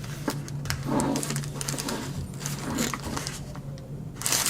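Rustling and crinkling of a product's packaging as it is handled, including the plastic bag around the hub, in short irregular strokes. A steady low hum sits underneath.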